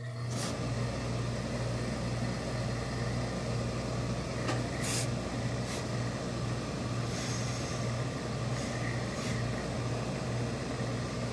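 Hose-fed industrial steam iron pressing a trouser leg: steady hissing steam over a low hum from the pressing equipment, which starts abruptly, with several short, sharper blasts of steam.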